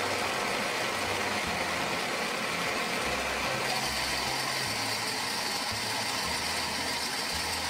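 Battery-operated toy blender running steadily with M&M candies inside, a continuous motor whir.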